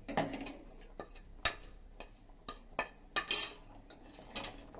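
Steel ladle stirring thick curry in a stainless steel pressure cooker, clinking against the pot several times. The sharpest knock comes about a second and a half in, and a few quicker clinks follow around three seconds in.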